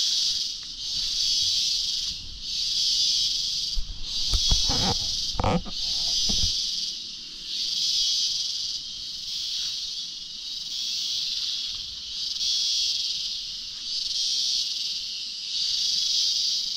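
Chorus of cicadas: a loud, high, hissing buzz that swells and fades in even waves about every second and a half. A few low thuds sound between about four and six seconds in.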